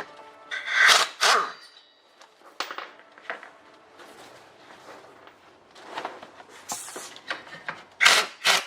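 Metal parts and tools clinking and knocking while a Suzuki LJ80 front swivel hub is being dismantled. Two loud strikes about a second in and a quick cluster near the end ring on briefly, with lighter clinks between.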